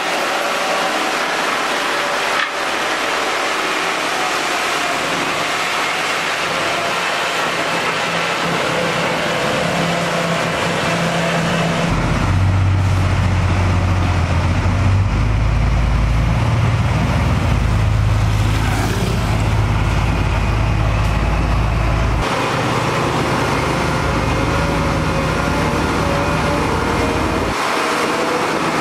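Heavy diesel road-construction machinery running steadily, with a deep low rumble coming in about twelve seconds in and fading about ten seconds later as a machine works close by.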